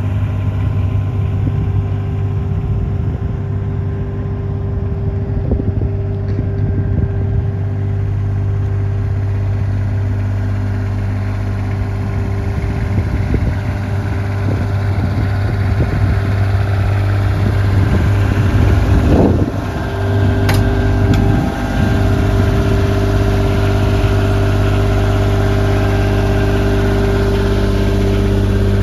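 Bobcat L28 articulated loader's diesel engine idling steadily. A short click and a brief dip in the sound about two-thirds of the way through.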